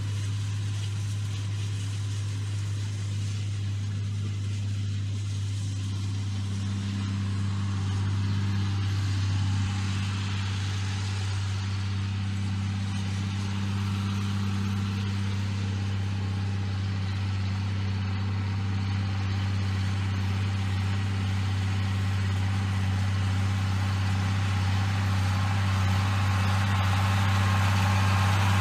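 John Deere 4250 tractor's six-cylinder turbo diesel running at a steady working speed while it pulls a chain harrow across grass. It gives a constant low hum that grows gradually louder as the tractor comes closer.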